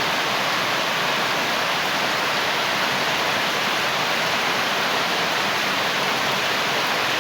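Steady rain falling, an even hiss with no single drops or knocks standing out.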